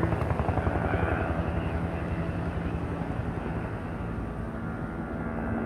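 Firefighting helicopter in flight, its rotor beating steadily and rapidly; the sound dips a little in the middle and then comes back up.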